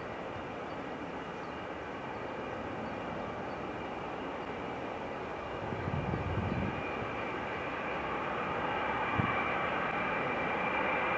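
Boeing 747SP jet engines running during the departure, with a steady high whine over the engine noise. The sound grows gradually louder as the jet nears.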